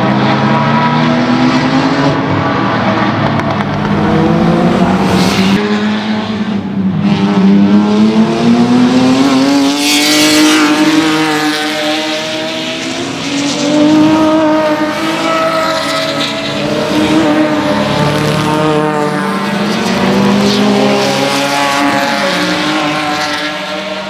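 Naturally aspirated 3.8-litre V6 engines of Hyundai Genesis Coupe race cars, several at once, accelerating and easing off through corners, with engine pitch rising and falling with throttle and gear changes. The sound changes abruptly about five and a half seconds in.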